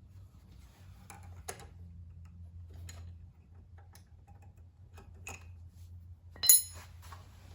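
Metal hand tools clicking and tapping against small engine parts during valve work on an inverter generator's engine, with one loud, sharp metallic clink that rings briefly about six and a half seconds in.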